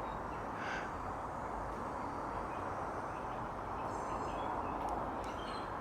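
Steady outdoor background noise with a few faint, high bird chirps, one about a second in and a short run near four seconds.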